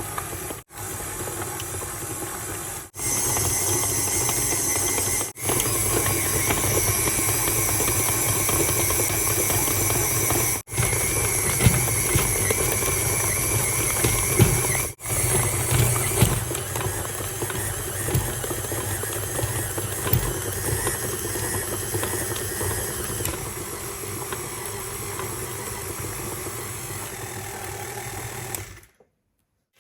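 Kenwood Cooking Chef XL stand mixer running steadily, its motor humming as the beater works glutinous rice mochi dough in the bowl. The sound is broken by a few brief gaps and stops about a second before the end.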